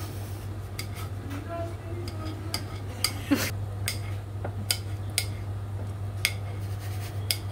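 Small kitchen knife tapping and scraping on a plate as pickled cucumbers are chopped, about a dozen sharp irregular clicks. A steady low hum runs underneath.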